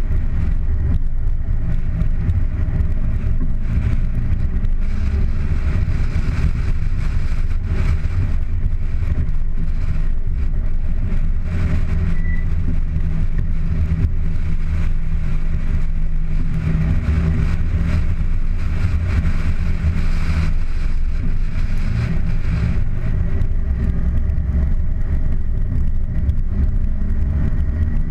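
Car driving on a wet road: a steady low engine drone mixed with tyre and road noise, swelling slightly now and then with the throttle.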